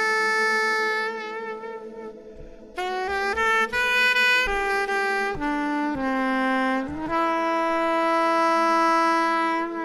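Soprano saxophone playing a slow, mournful melody: long held notes with vibrato, a quick run of shorter rising notes about three seconds in, then another long held note.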